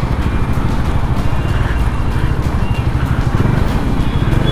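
Bajaj Dominar 400's single-cylinder engine running at low revs while the bike crawls through traffic: a steady, low, fast-pulsing rumble.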